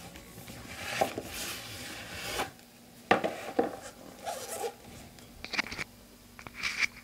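Cardboard product box being handled and opened by hand: a long sliding rub, then a few light knocks and scrapes.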